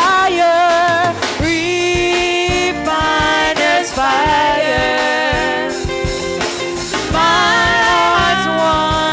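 Live gospel praise singing: several women's voices singing together into microphones, backed by a drum kit keeping a steady beat.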